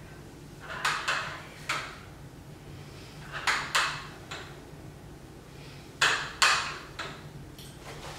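Adjustable block-style dumbbells clinking and rattling with each lateral raise: three clusters of sharp clacks about two and a half seconds apart, one per rep.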